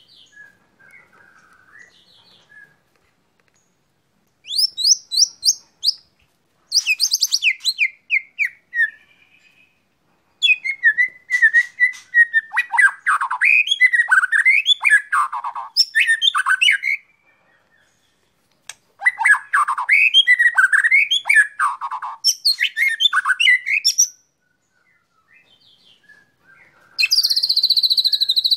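White-rumped shama (murai batu) singing loudly in bursts of rapid, varied song phrases, each a few seconds long, with short pauses between them. The longest and fullest phrases come in the middle.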